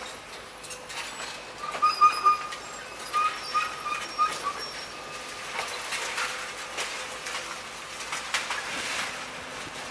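Hydraulic demolition excavators working: a steady machine hum with scattered knocks and crunches of debris. About two to four and a half seconds in comes a loud burst of short, high-pitched chirps or squeaks.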